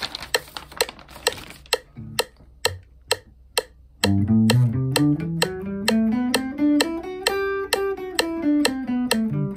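Metronome clicking about twice a second, with paper rustling in the first second or so. About four seconds in, an electric guitar starts playing a G major scale in even single notes to the click, climbing and then coming back down.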